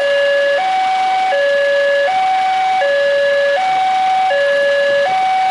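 Railway level-crossing warning alarm from the crossing signal's loudspeaker: an electronic two-tone signal switching steadily between a higher and a lower tone, each held about three-quarters of a second. It sounds while the crossing is closed, warning of an approaching train.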